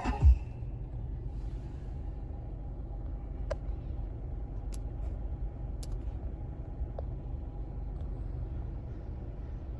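Steady low rumble of a car heard from inside its cabin, with a single thump just after the start and a few faint clicks.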